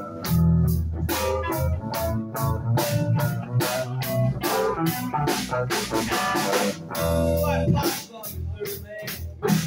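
Live rock band playing electric guitars and a drum kit, with a heavy bass line and a steady run of drum and cymbal hits.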